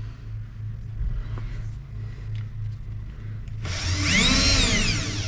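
Power drill with a large bit spinning up and cutting briefly about three and a half seconds in, its whine rising and then falling away. The big bit is not biting without a pilot hole. A faint low hum is heard before it.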